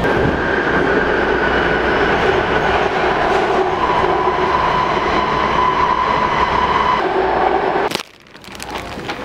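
Interior of a moving BART rapid-transit train car: loud steady rumble of wheels on rail with whining tones whose pitch slowly shifts. The train sound cuts off abruptly about a second before the end, leaving much quieter sound with a few clicks.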